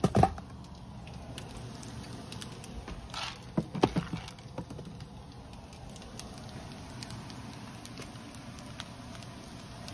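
Items being moved about on a kitchen cupboard shelf: a few light knocks and clatters, one near the start and a cluster about three to four seconds in, over a steady low background hiss.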